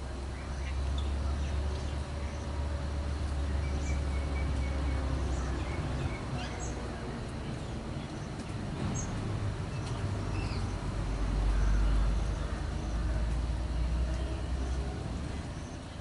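Scattered short high chirps and whistles from several wild birds over a deep low rumble that fills the first five seconds, fades, then swells again near the end.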